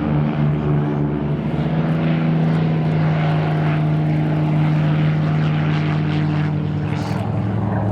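Propeller-driven piston-engine airplane running with a steady engine drone, its pitch stepping up slightly just under two seconds in.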